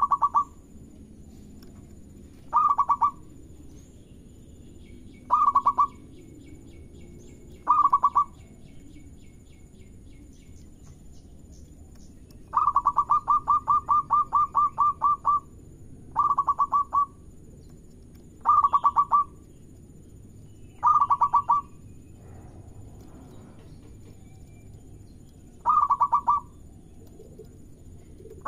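Zebra dove (perkutut) cooing: about nine short phrases of rapid staccato notes a few seconds apart. One phrase near the middle runs on for about three seconds.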